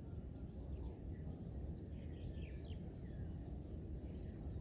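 Rural riverside ambience: a steady high-pitched insect drone with a few faint bird chirps about one and a half to three seconds in, over a low rumble.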